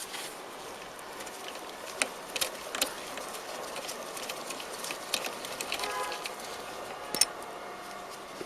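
Scattered sharp metallic clicks and clinks of hand tools and brake caliper bolts being undone and drawn out, with a brief squeak about six seconds in as a caliper pin slides out through its rubber boot.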